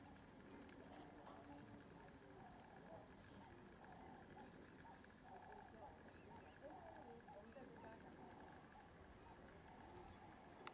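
Faint insects chirping in two regular pulsing calls, one about one and a half chirps a second and a higher one about once a second, over faint irregular lower sounds.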